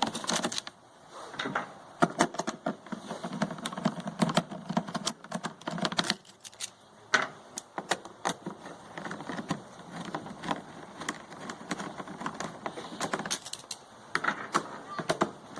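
Hand tools working screws out of a WEN inverter generator's plastic cover: irregular clicks, clinks and rattles of the screwdriver, screws and plastic housing, with rustling handling between them.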